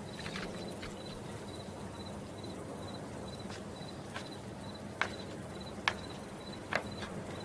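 Crickets chirping steadily, a short high chirp about two or three times a second. Three sharp clicks stand out in the second half.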